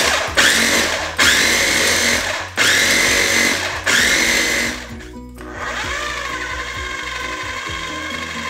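Food processor pulsed about five times, each short burst a rising motor whine as it chops basil, pine nuts, garlic and Parmesan. About halfway through it switches to running steadily on low speed.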